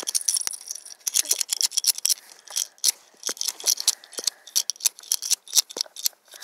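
Handcuffs clicking and rattling, with many quick, irregular sharp metal clicks as they are yanked hard to rip one side off; the cuff holds and does not come off.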